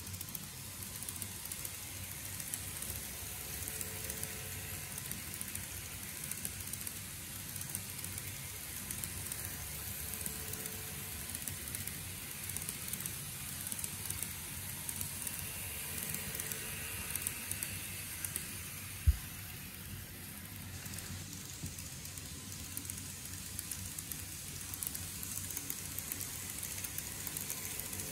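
TOMIX N-gauge E231 series 0 model train running along its track: a steady hiss with a fast, irregular patter of small clicks from its wheels on the rails. One low thump about two-thirds of the way through.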